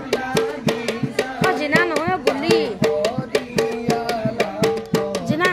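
Indian dance music with a quick, steady drum beat under a melody of sliding, ornamented notes.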